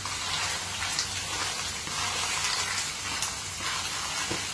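Lala clams sizzling in a nonstick wok as they are stirred gently with a wooden spatula, with a few soft scrapes of the spatula against the pan. The steady hiss comes from the clams' own liquid being fried off.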